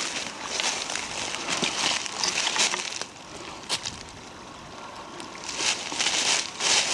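Brush and twigs rustling and crackling as a person pushes through dense undergrowth on foot, in irregular bursts with a few sharp snaps, easing off for a couple of seconds midway.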